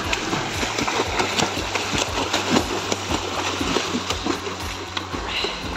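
A person thrashing and swimming in fast-flowing canal water: a dense, irregular run of splashes and churning water, loud and close.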